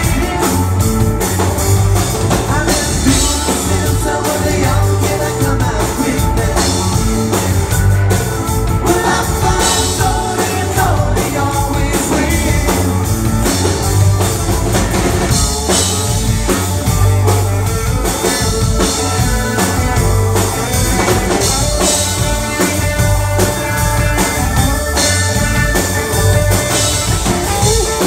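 Live rock band playing, with a drum kit and electric guitars, and a man singing lead.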